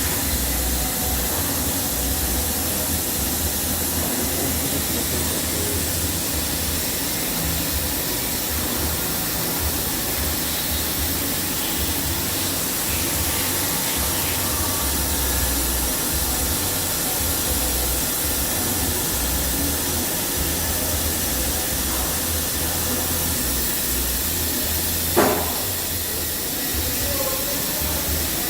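Junker Grindor CNC cylindrical grinding machine running: a steady hiss with a low machine hum and faint steady tones, and a single sharp knock about 25 seconds in.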